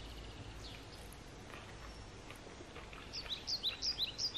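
Small bird chirping: a few faint high chirps, then a quick run of short, high chirps, several a second, in the last second or so.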